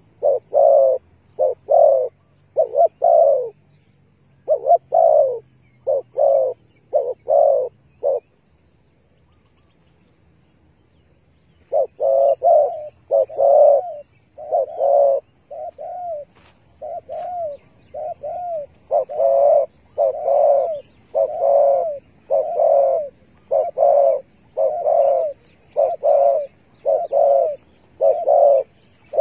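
Spotted doves cooing: short, repeated coo notes in rapid phrases, pausing for a few seconds about a third of the way through, then resuming.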